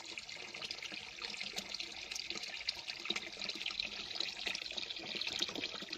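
Spring water running from a metal pipe spout in a thin stream and splashing steadily into a water-filled basin.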